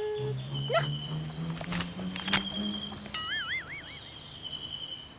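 Crickets chirping steadily in a high, pulsing trill, over soft low notes that step upward. A brief wavering, whistle-like tone comes about three seconds in.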